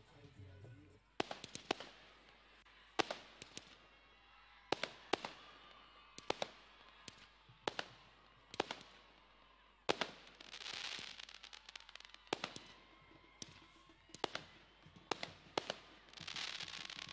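Firecrackers going off in sharp single bangs at irregular intervals, with two spells of hiss, about ten and sixteen seconds in.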